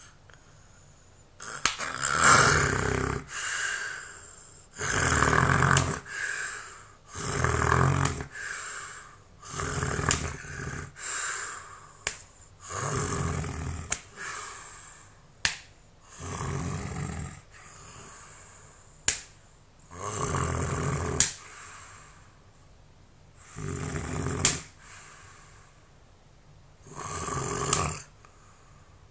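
A person snoring heavily in sleep, one loud rasping snore every two to four seconds, about a dozen in all. Several of the later snores end in a sharp click.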